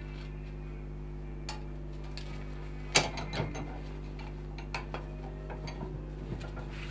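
Cast-iron bench vise being loosened and reset: a sharp metallic clack about three seconds in, then a run of lighter clicks and knocks as the handle is worked and the wooden block is shifted in the jaws.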